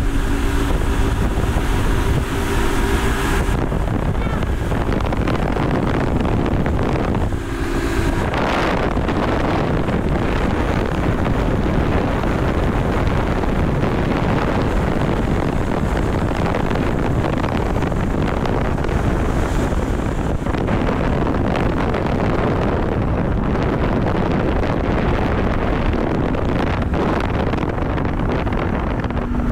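Twin Mercury outboard motors running at towing speed, with heavy wind buffeting on the microphone and the wake's rushing water. A steady engine tone stands out in the first few seconds.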